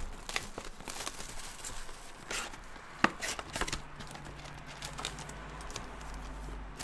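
Handling of a cardboard trading-card box and its foil packs: scattered taps, clicks and rustles, with one sharp knock about three seconds in. A low steady hum joins in the second half.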